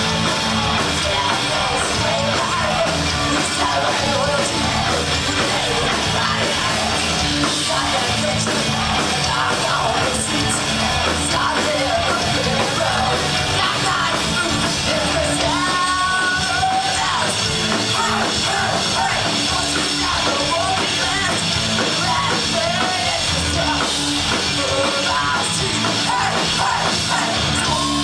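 Live rock music: loud band with a shouted, yelled vocal over distorted guitars and drums.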